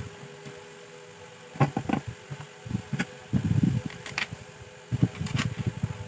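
Irregular knocks, clicks and low thuds, typical of hands working with tools and metal parts, over a steady hum.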